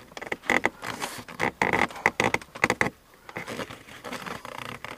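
Small plastic clicks and scrapes from a dashboard light sensor and its wiring connector being pulled apart and handled by hand, busiest in the first three seconds and lighter after.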